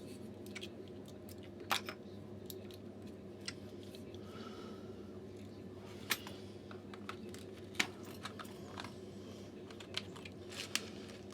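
Faint, irregular clicks and scrapes of a small screwdriver tip on a hairdryer's plastic casing, prying at the plug that covers a security screw, with a few sharper clicks scattered through.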